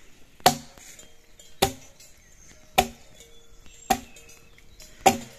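Chopping with a blade: five sharp, evenly spaced strikes, a little under one a second, each followed by a brief ring.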